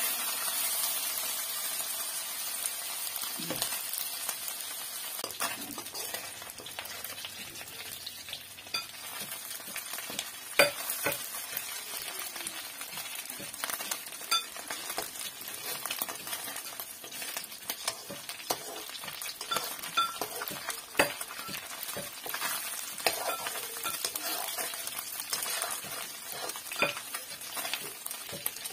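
Food sizzling as it fries in a metal wok, stirred with a slotted metal spatula that scrapes and clicks against the pan at irregular moments over a steady hiss.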